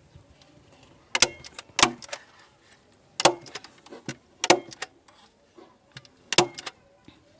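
Irregular sharp knocks and clinks, about eight in a few seconds, some with a short ring: tools and hardware being handled while a speaker cabinet is put together.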